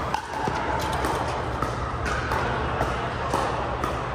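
Pickleball play: irregular sharp pops of paddles striking a hard plastic ball and the ball bouncing on the court, several to a second.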